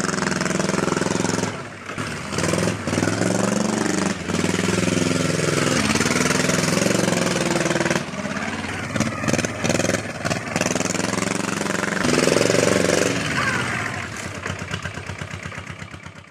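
Aixam microcar's engine running and revving up and down as it drives across grass, its pitch rising and falling, with a few brief dips, then fading out near the end.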